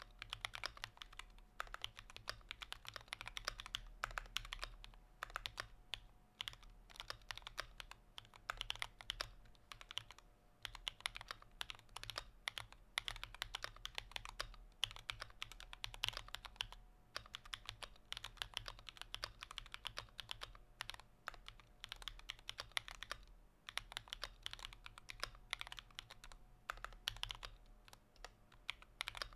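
Computer keyboard being typed on quickly and continuously, a dense run of key clicks with short pauses between bursts.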